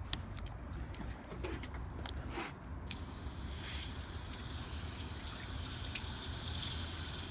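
Water being forced from a hose through a car's heater core and hoses, with a few clicks in the first seconds, then a steady rushing hiss of flowing water from about three and a half seconds in.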